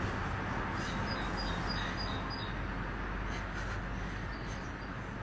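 Steady outdoor background noise with small birds chirping now and then, high and brief.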